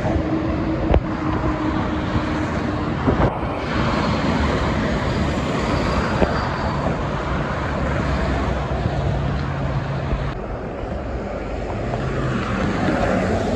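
Steady rush of dense multi-lane highway traffic: tyres and engines of cars and trucks passing, with the low drone of heavy truck engines. A little over ten seconds in, the sound changes abruptly to duller, nearer street traffic.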